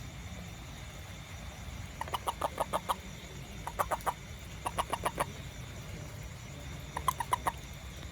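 Four short bursts of rapid clucking calls from an animal, each a quick run of several sharp notes, with pauses of about a second between bursts.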